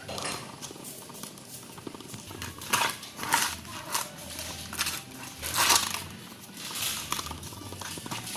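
A dog playing with a ball: irregular scuffling and knocking noises, with a few louder bursts around the middle.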